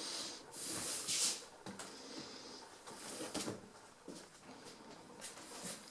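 Noisy breathing and sniffing close to the microphone, with a few short knocks of handling or footsteps as the camera is carried through the rooms.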